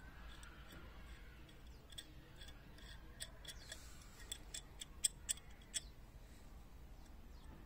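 Festool adjustable wrench handled and adjusted by hand, its worm screw turned and sliding jaw moved, giving a string of small, sharp metallic clicks, most of them bunched in the middle.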